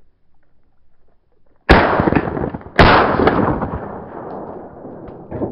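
Two shotgun blasts, the first about a second and a half in and the second about a second later, each trailing off in a long echo.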